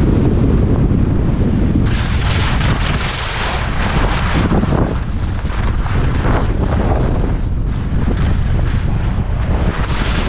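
Wind buffeting the camera's microphone during a fast ski descent, a heavy steady rumble. About two seconds in, skis start hissing and scraping over the firm groomed snow in uneven surges.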